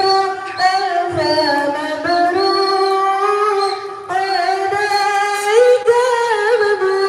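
Singing in a high voice: slow melody of long held notes that waver slightly and slide from one pitch to the next.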